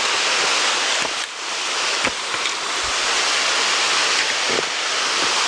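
Waterfall's rushing water: a steady, dense hiss, with a few faint knocks in it.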